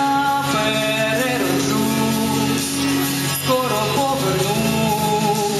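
Young female vocalist singing into a microphone over instrumental accompaniment, holding long wavering notes.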